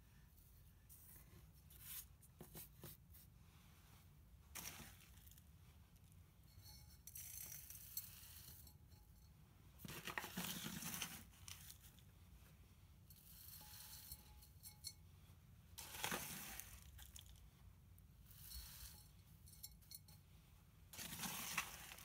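Coarse granular potting mix being scooped by hand from a foil tray and poured into a terracotta pot: short bursts of gritty crunching and rattling grains. The loudest bursts come about halfway through and near the end.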